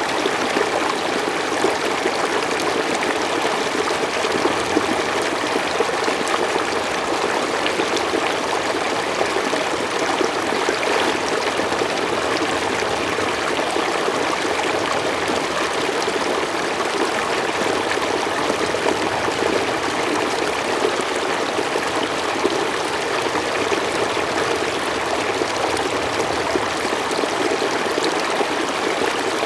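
Mountain stream flowing steadily over rocks, a continuous even rush of water with small trickles in it.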